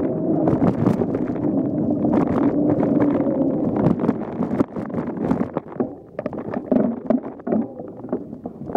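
Mountain bike riding a bumpy trail, heard from a camera on the bike or rider: tyres rolling and the bike rattling and knocking over bumps, with wind on the microphone. It gets quieter and more broken after about six seconds.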